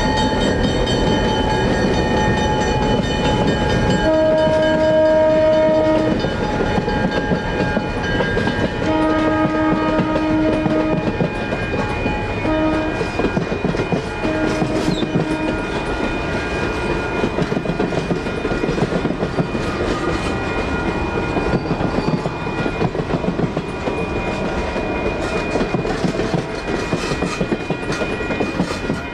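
Diesel locomotive horn sounding the grade-crossing pattern of long, long, short, long over the rumble of an EMD GP9 and GP38-2 double-header and its passenger cars passing, with wheels clacking over the rails. A crossing's electronic warning bell rings steadily underneath.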